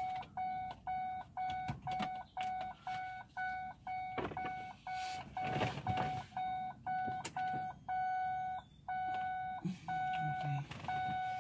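Electronic warning chime in a 2008 Ford Expedition's cabin: a single beep repeating evenly about twice a second, held as one unbroken tone for a moment about eight seconds in before the repeating beeps resume.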